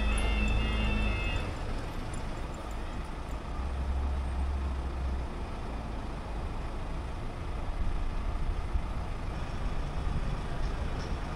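Level crossing warning alarm tones sounding, then cutting off about a second and a half in once the barriers are down. After that, a steady low rumble of queued road vehicles idling at the closed crossing.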